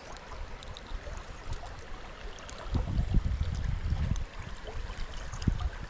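Stream water running steadily, with irregular bursts of low rumble in the second half.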